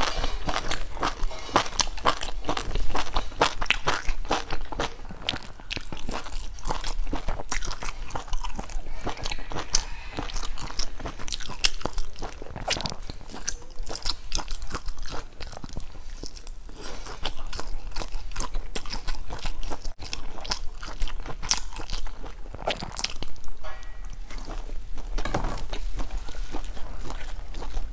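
A person biting and chewing crunchy food: a dense, irregular run of sharp crunches.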